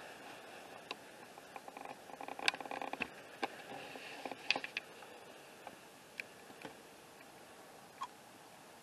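Faint rustling and scattered sharp clicks over a steady low hiss, busiest and crackliest from about two to five seconds in.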